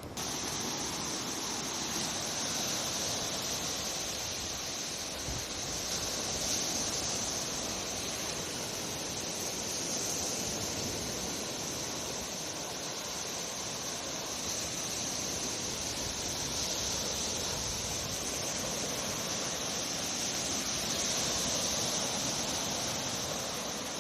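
Steady seashore noise: an even hiss of surf with a constant high-pitched hiss above it, with no distinct strikes or changes.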